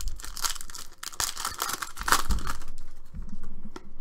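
A Panini Prizm basketball card pack's wrapper is torn open and crinkled by hand for about two and a half seconds, then it goes quieter with a few light clicks as the cards are handled.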